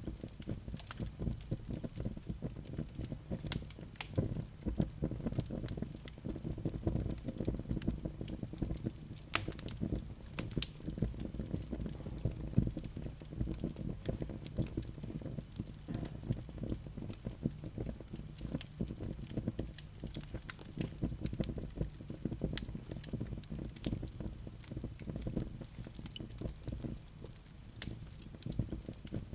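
Wood fire crackling in a fireplace: frequent irregular sharp pops and clicks over a steady low rumble of the burning logs.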